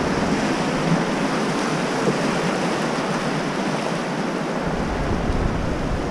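Whitewater of a river rapid rushing around an inflatable raft, a steady wash of water noise. Wind rumbles on the microphone at the start, fades out within the first second, and comes back about four and a half seconds in.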